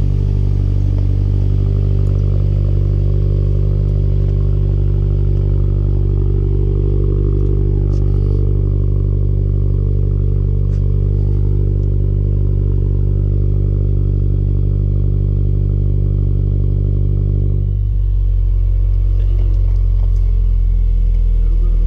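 2017 Subaru WRX's turbocharged flat-four idling steadily through a freshly fitted Tomei catback exhaust while it warms up, heard close to the tailpipe. About eighteen seconds in the sound turns deeper, with more low rumble and less of the higher tone.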